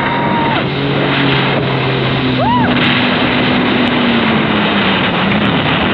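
110-horsepower jet ski running at speed, its engine hum under a loud rush of spray and wind. A short rising-then-falling cry about two and a half seconds in.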